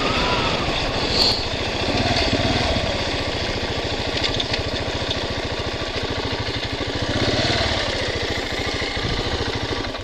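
Dual-sport motorcycle engine running while riding a dirt road, its pitch rising and falling a couple of times with the throttle.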